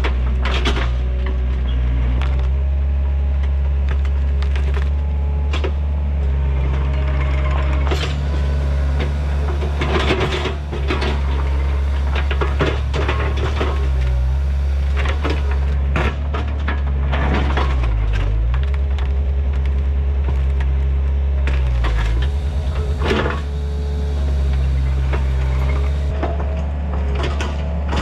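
Takeuchi TL130 track loader's diesel engine running steadily under load while wood cracks and splinters again and again, as the machine pushes into trees and brush and breaks them.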